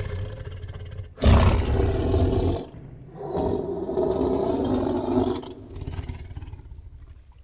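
A large animal bellowing: two loud, long, deep calls, with quieter calling between and after them that fades away.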